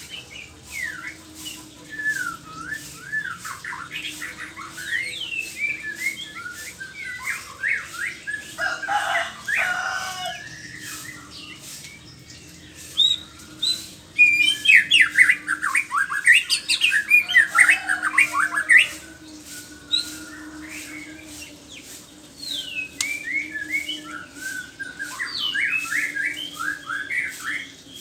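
White-rumped shama singing a varied run of quick whistled and chattering phrases, densest and loudest about halfway through. A faint steady hum lies underneath.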